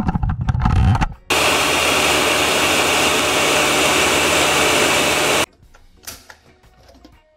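Countertop blender puréeing whole scallions, onion, hot peppers and thyme with a little water into a green jerk marinade. About a second of rough, uneven chopping as the blades catch the chunky pieces, then a loud steady whir for about four seconds that cuts off suddenly.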